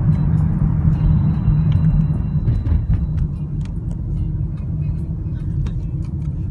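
Steady low rumble of road and engine noise heard from inside a moving car, easing slightly about two and a half seconds in as the car comes out of a road tunnel into the open.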